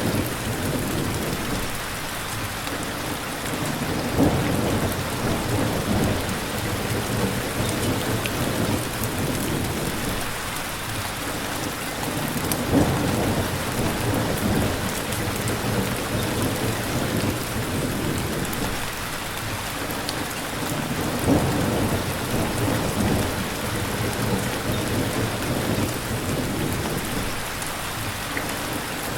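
Steady rain falling, with low rumbles of thunder swelling up a few times.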